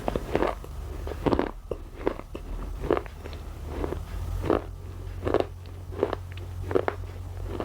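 Thin layers of white shale breaking in sharp, irregular crunches, about one to two a second, over a steady low hum.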